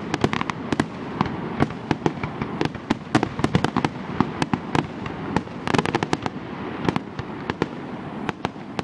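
Fireworks finale barrage: aerial shells bursting in quick succession, several sharp bangs a second, with a denser flurry about six seconds in.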